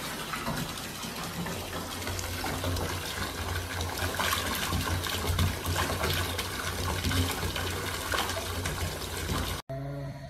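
Bath tap running, water pouring from the spout into a partly filled bathtub as a steady splashing rush; it cuts off sharply near the end.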